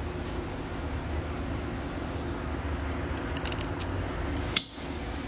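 Steady low room hum. A few light clicks about three and a half seconds in, then one sharper knock just before the end, as the phone filming is picked up and moved.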